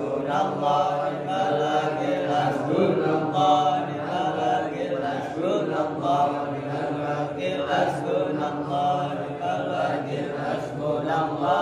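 A man reciting the Quran in Arabic into a microphone, in the melodic chanted style of tilawah: long held phrases whose pitch glides up and down.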